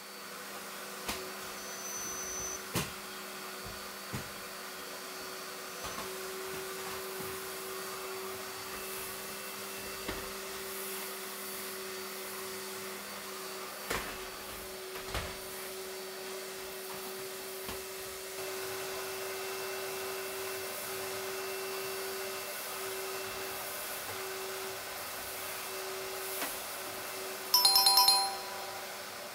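Commercial vacuum cleaner running steadily with a constant hum while sucking up dust, with scattered small knocks and clicks. Near the end, a brief loud ringing tone.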